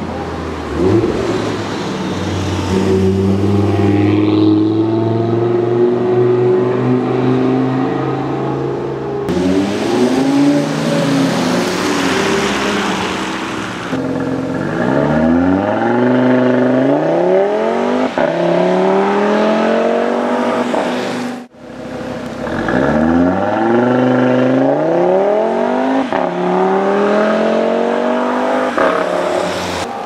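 2016 Audi RS 3's turbocharged 2.5-litre five-cylinder engine under hard acceleration. The revs climb and fall back repeatedly through a series of upshifts, with a brief break about two-thirds of the way in.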